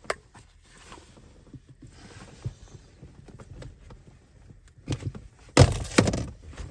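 Plastic gear shift knob and gaiter being handled on the gear lever: small plastic clicks and knocks, then a louder scraping rustle about five and a half seconds in as the knob is slid down the lever.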